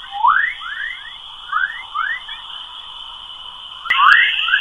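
Space-plasma radio emissions presented as the sound of Earth, converted to audio: a string of short rising chirps, several a second, over a steady high tone. About four seconds in there is a click, and the steady tone gets louder after it.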